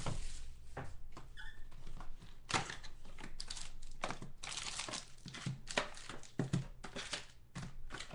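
Plastic or foil trading-card pack wrapper being torn open and crinkled by hand, an irregular run of crackles and rips.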